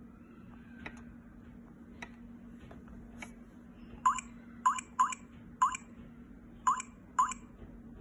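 Smart lock touch keypad being woken with a few faint finger taps, then beeping once per key press as a passcode is typed: six short rising beeps at an uneven typing pace over the last four seconds.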